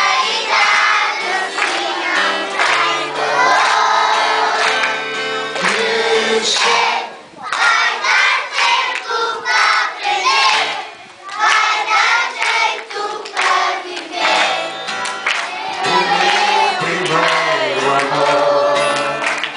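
A group of young children singing a song together, with an acoustic guitar accompanying them; the singing dips briefly twice between phrases.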